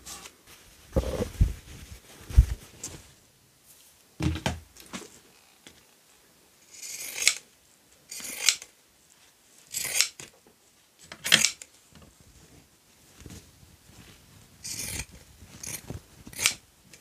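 Hands handling and cutting fabric scraps and paper for a journal cover: a few dull knocks at first, then short, crisp scrapes every one to two seconds.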